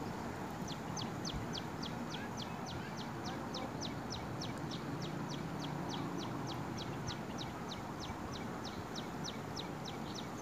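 A bird repeating one short, high, falling note at an even pace, about three to four times a second, starting just under a second in, over a steady outdoor background hiss.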